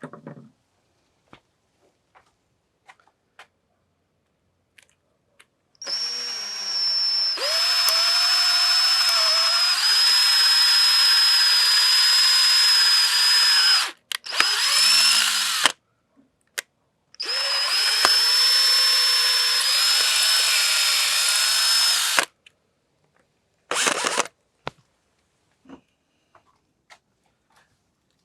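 Power drill boring out a broken bolt hole in a two-stroke outboard engine block, to make the hole big enough to tap. It runs at a steady high whine in two long runs of about eight and five seconds, with short bursts between and after.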